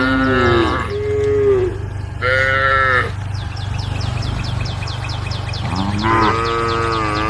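Cows mooing: two overlapping calls at the start, a short one about two seconds in, and another longer moo beginning near the end.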